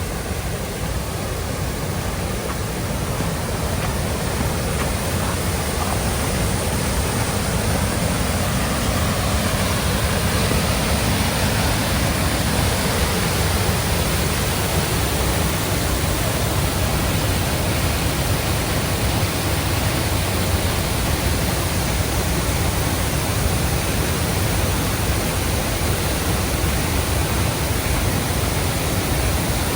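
Waterfall rushing: a steady, even wash of falling water that grows slightly louder over the first few seconds.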